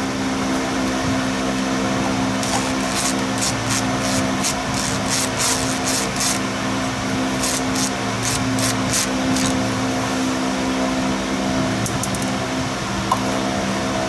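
Cordless power tool backing out the last bolts of a transmission pan, a string of sharp clicks in the middle, over a steady background hum.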